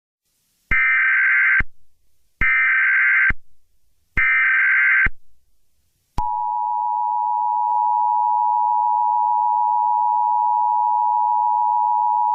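Emergency Alert System tones: three roughly one-second bursts of SAME header data screech, each trailing off in a short echo. About six seconds in, the steady two-tone EAS attention signal starts and holds, announcing an alert message.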